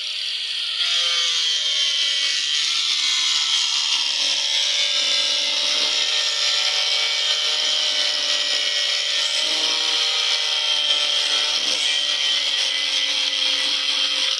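Electric power tool running steadily while working wood: a continuous motor whine that wavers slightly in pitch under load, over a loud hiss of cutting or sanding.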